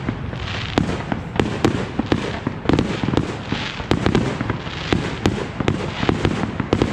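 Fireworks show: a continuous rumble of aerial shell bursts with many sharp cracks and bangs, several a second, throughout.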